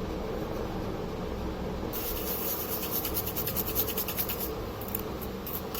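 Quick, scratchy rubbing and scraping strokes from hands working at the amplifier board's heatsink, starting about two seconds in and giving way to a few scattered clicks near the end, over a steady low hum.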